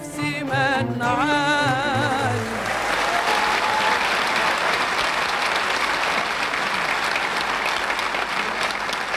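A live Arabic orchestra plays an ornamented, wavering melodic line. About two and a half seconds in, a large concert audience starts applauding, and the applause carries on over the music.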